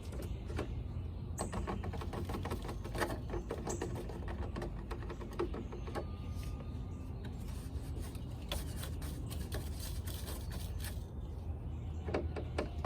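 Sand poured through a funnel into hollow plastic pool steps to weight them: a dense, rapid crackle of falling grains over a steady low rumble.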